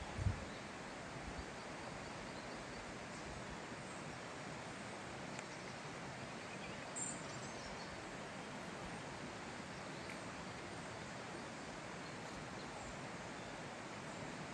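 Steady forest ambience, an even rushing hiss, with a soft low thump just after the start and a brief high chirp about halfway through.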